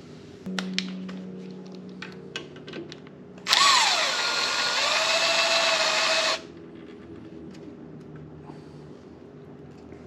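Cordless power drill-driver running for about three seconds, backing out a screw from the motorcycle's handlebar cover trim: its motor pitch drops as it bites, holds steady, then stops abruptly. Light clicks of the tool and parts being handled come before it.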